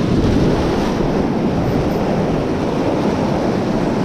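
Sea surf breaking and washing over shoreline rocks, a steady loud rush of water, with wind buffeting the microphone.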